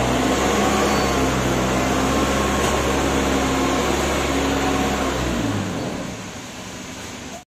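Mitsubishi Grendia 3-ton forklift's engine running at a steady pitch, fading from about five and a half seconds in as the truck moves off, then cutting off just before the end.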